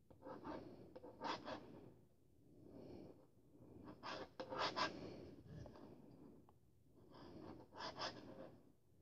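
Faint scratchy rustling of yarn sliding over a metal crochet hook and pulled through the stitches as single crochet is worked into the back loop, coming in several short clusters of strokes with quieter gaps between.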